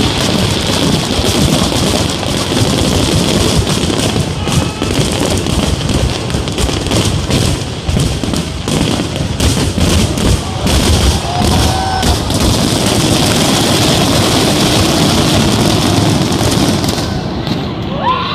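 Fireworks display going off: a dense, continuous run of bangs and rapid crackling over a deep rumble, thinning out near the end.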